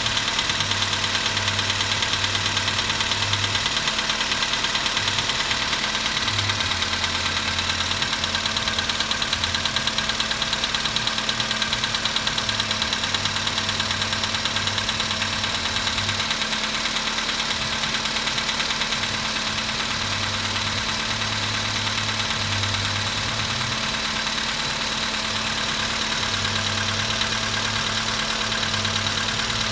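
Volkswagen Polo Sedan's 1.6-litre CFNA four-cylinder petrol engine idling steadily on a cold start, with a fast, even knock running through the idle: the cold-engine knock the owner is showing.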